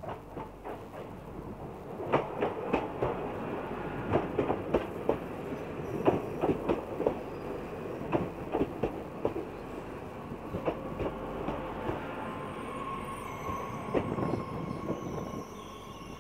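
SNCF TER Bombardier AGC multiple unit (B 81500 series) rolling slowly into the station: its wheels knock in a quick irregular run of clacks over rail joints and points. A thin squeal rises as it slows toward a stop near the end.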